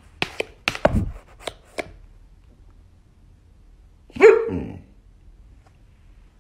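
Several sharp clicks and a dull knock from a laptop, its keys tapped and its lid shut. About four seconds in, a dog gives one short bark, falling in pitch, the loudest sound here.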